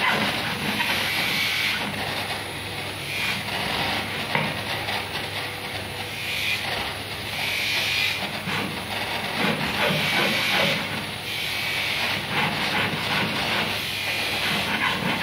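Hand-held gas soldering torch hissing steadily as its small blue flame heats sterling silver jewelry mountings for soldering. The hiss grows and fades now and then.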